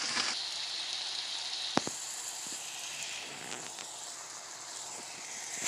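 Diced onion, red bell pepper and potatoes sizzling steadily in olive oil in a frying pan, with a short click a little before two seconds in.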